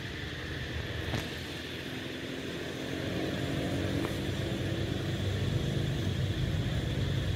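A motor vehicle engine passing close by, building in loudness over several seconds, loudest near the end, then easing off. A steady high drone sits underneath, and a sharp click comes right at the end.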